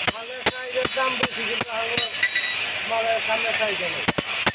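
Blacksmith's hammer striking metal on an anvil, two or three ringing blows a second. The blows pause in the middle and start again near the end. Voices talk underneath.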